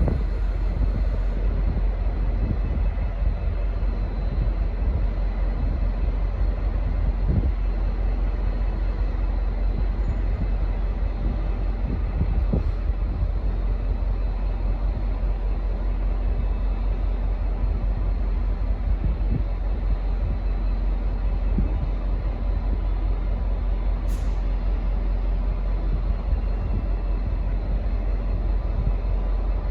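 V/Line N-class diesel-electric locomotive idling at the platform: a steady low engine rumble with a few faint clicks.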